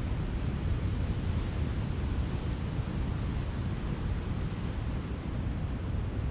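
Ocean surf and wind, a steady, even wash with wind rumbling on the microphone.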